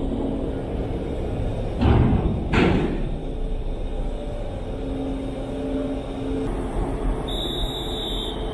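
Steady low rumble of a moored ferry's machinery and a forklift driving onto the ship's steel vehicle ramp, with two loud clanks about two seconds in.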